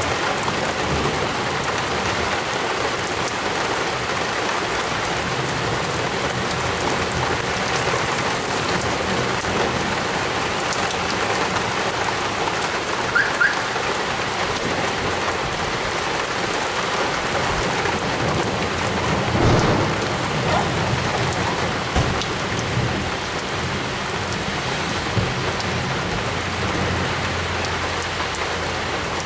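Torrential rain falling steadily in a thunderstorm downpour, a dense even hiss, with a low rumble of thunder swelling about two-thirds of the way through.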